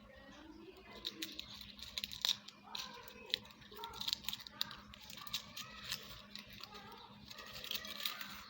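Foil candy wrappers crinkling as they are handled and unwrapped, in quick, irregular crackles.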